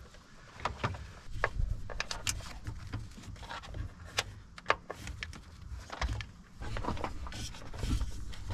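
Irregular light clicks, taps and rustling of hands working wiring through a firewall plug, over low handling noise.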